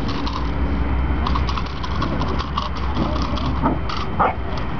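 A four-month-old puppy gives two short barks near the end while tugging a bite rag in defence training. A steady low rumble runs underneath.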